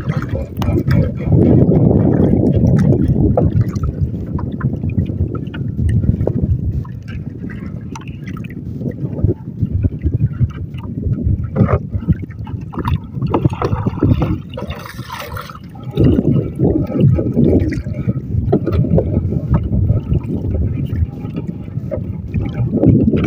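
Sea water sloshing and splashing against the wooden hull of a small paddled outrigger canoe, in loud surges about a second in and again around sixteen seconds in.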